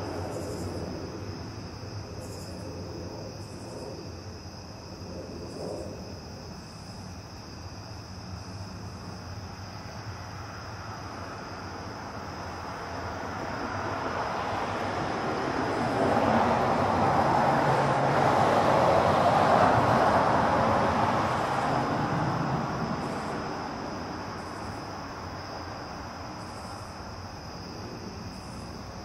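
A vehicle passes, its noise swelling over several seconds to a peak just past the middle, then fading away. Under it, night insects keep up a steady high-pitched trill.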